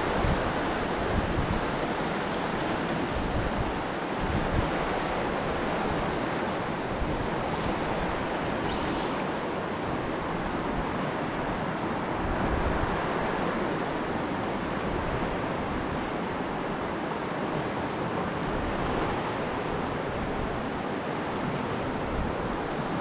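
Mountain stream rushing steadily over rocks in a riffle.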